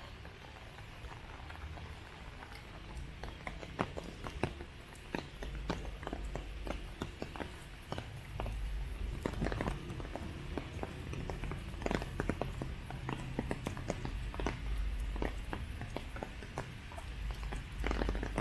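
Footsteps on wet paving in the rain, with many scattered sharp drip taps over a steady hiss and a low rumble that swells about halfway through.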